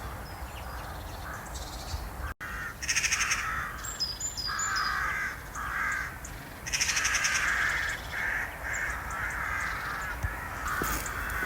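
Crows cawing again and again, a run of harsh caws with pauses between them; the loudest come about three and seven seconds in.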